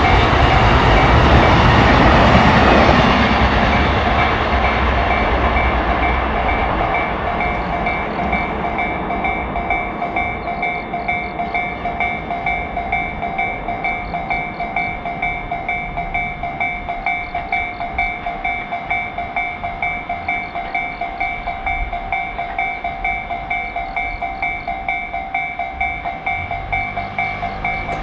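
Japanese railroad crossing warning bell ringing in a steady 'kan-kan' rhythm. A train rumbles past over it and fades away in the first few seconds.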